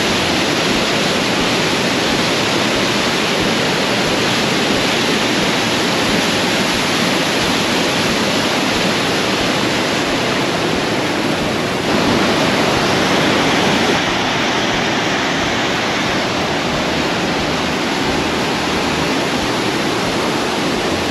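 Kadiyanlena Falls crashing steadily over its rock ledges, with white water rushing through the rocky cascades below. The rush grows a little louder for a couple of seconds about halfway through.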